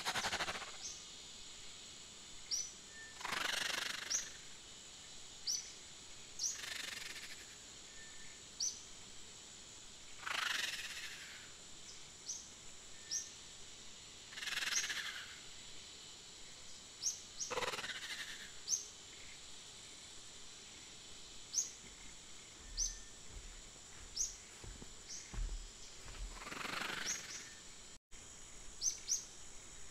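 Nature ambience track: many short, rising bird chirps over a steady high-pitched whine, with a soft swish of noise every three to four seconds.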